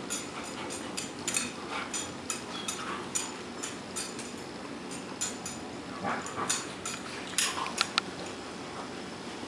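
Dogs playing, a standard poodle among them, with frequent light clicks and jingles, likely collar tags, and a few sharper, louder clicks near the end.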